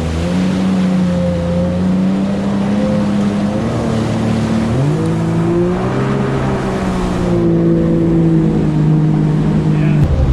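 Jet ski engine running over a rush of water and wind. About five seconds in it speeds up, then eases slightly and holds, and its note drops out just before the end.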